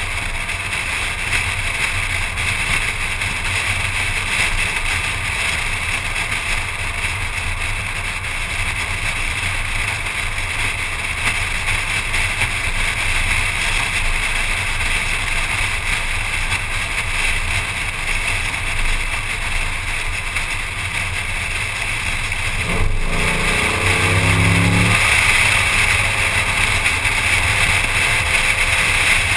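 Steady wind rush and road rumble on a hood-mounted action camera of a car driving along at speed. About 23 seconds in, a brief humming tone wavers in pitch for a couple of seconds, and then the rush grows louder.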